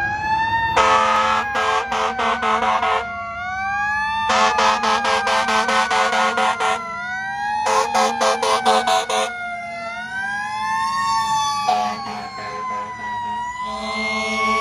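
Sirens of two responding fire trucks, a 2012 Spartan Gladiator and a 2015 Seagrave Aerialscope ladder truck, wailing up and down, broken four or five times by bursts of rapid, repeated air horn blasts.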